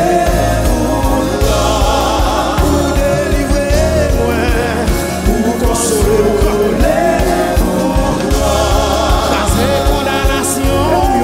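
Live gospel worship song sung in Haitian Creole by a lead singer with backing singers over a band with keyboard, with a steady beat and a cymbal crash now and then.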